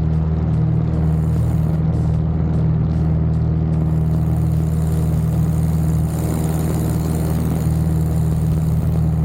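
Cessna 172's piston engine and propeller droning steadily, with a rise in the higher hiss a few seconds in.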